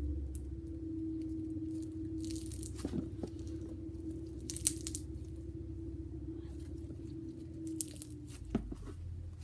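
Sticky red glitter glue slime being squished and pulled apart in the hands, with irregular crackles, tears and a few sharper pops. A steady low hum runs underneath.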